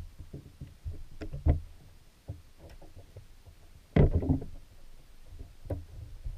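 Muffled underwater knocks, clicks and low rumbling heard through a submerged camera in a creek, inside a wire mesh minnow trap; the loudest cluster of knocks comes about four seconds in.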